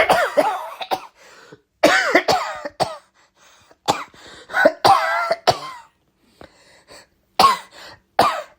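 A person coughing in several separate fits about every two seconds, some coughs with a strong voiced tone.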